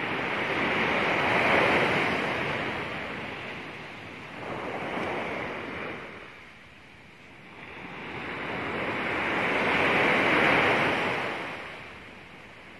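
Surf breaking and washing up a sandy beach, the rush swelling and fading three times, loudest about a second in and again near the end.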